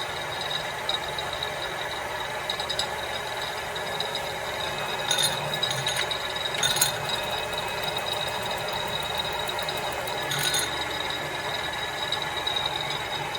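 Cincinnati No. 2 horizontal milling machine running with its table on power traverse: a steady geared whir with a high whine, broken by a few short rattles about five, seven and ten seconds in.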